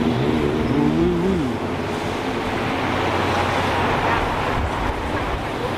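Cars driving past on a city street: a steady noise of tyres and engines, with a faint voice near the start.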